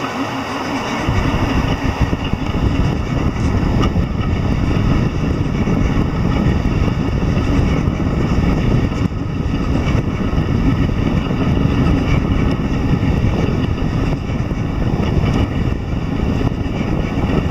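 Delta 3D printer running, its stepper motors buzzing steadily; the noise steps up about a second in and then holds.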